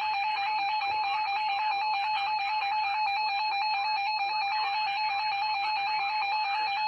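Emergency Alert System attention signal: the steady, loud two-tone alert tone (853 and 960 Hz), here with strong overtones and a hiss beneath it, sounding ahead of a broadcast warning message.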